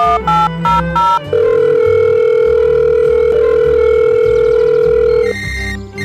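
Telephone sound effect: a quick run of beeps at shifting pitches, then one long steady tone held for about four seconds, over background music with a steady beat.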